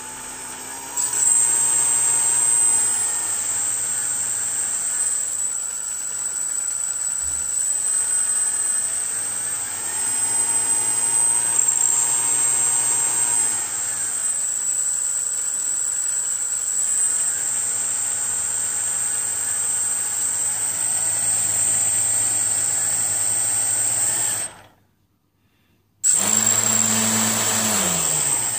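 Brushless RC motor run by an Emax Simon 12A speed controller: a high steady electronic whine over the motor's hum, whose pitch shifts up and down. It cuts out for about a second near the end, then starts again and its pitch falls.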